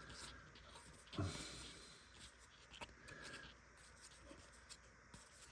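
Faint rustling and light ticks of trading cards being handled and slid past one another, with one slightly louder brief sound about a second in.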